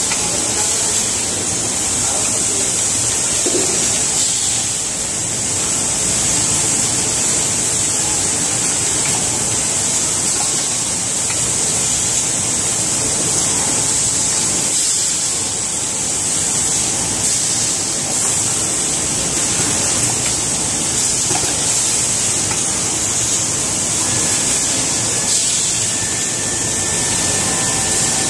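Automatic bottle filling and foil sealing machine running: a steady, loud hiss over constant machine noise, with a faint high whine joining near the end.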